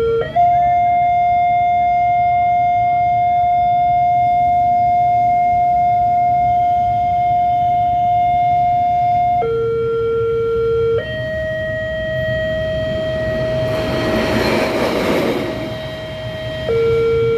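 Railway level-crossing warning siren sounding a steady electronic tone that jumps irregularly between fixed pitches: a high tone held for about nine seconds, a drop to a lower tone, then a middle tone, the uneven pattern of a malfunctioning ('error') crossing siren. About two-thirds of the way through, a vehicle passes with a rush of noise that swells and fades.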